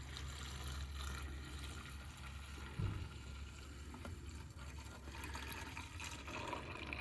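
Liquid trickling faintly into a container over a steady low hum, with one soft thump about three seconds in.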